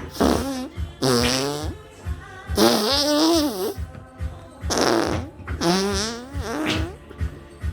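A run of about five or six fart sound effects, each a pitched, wobbling, gliding blat of half a second to a second, over background music with a steady beat.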